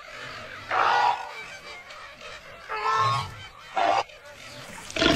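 Flamingo flock honking: four short honking calls, spaced unevenly.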